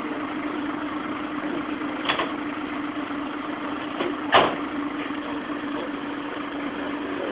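Steady hum of an idling vehicle engine, with two sharp knocks about two seconds and four and a half seconds in, the second the loudest.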